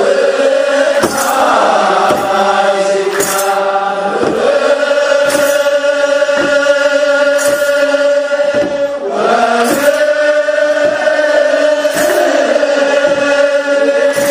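Ethiopian Orthodox clergy chanting a wereb in unison in long held notes, with kebero drums struck about once a second.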